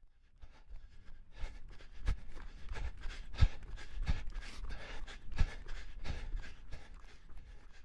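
A person panting, out of breath after running: a quick, uneven run of breaths in and out that fades near the end.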